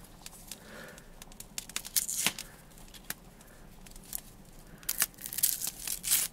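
Dry onion skin crackling and tearing as it is peeled off with a knife, in irregular short scratches, with a louder one about two seconds in and several more near the end.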